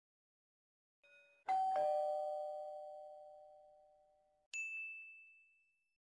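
Doorbell-style ding-dong chime: two notes, the second lower, ringing and fading slowly over about three seconds. A single higher ding follows near the end and fades out.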